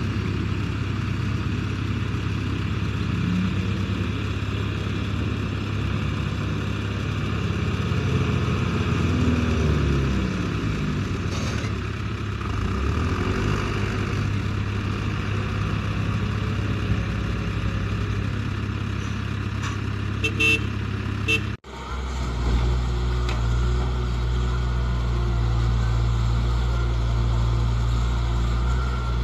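Diesel engines of a backhoe loader and a tipper truck running, with the engine pitch rising and falling as the truck moves up beside the loader, and a few short high toots about two-thirds of the way through. After an abrupt cut, a Case backhoe loader's diesel engine runs steadily while it digs.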